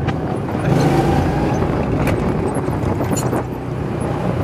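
Go-kart engine running steadily as the kart is driven around the track, heard from the driver's seat.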